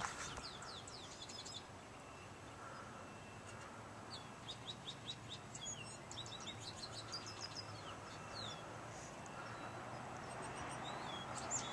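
Small songbirds chirping in several runs of quick, high chirps, over a faint steady background noise and low hum.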